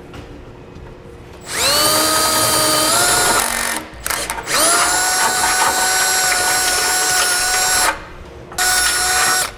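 Cordless drill with a half-inch bit enlarging holes in a metal bumper core: three runs of a steady high motor whine, each rising in pitch as it spins up, the longest about three seconds, with short stops between.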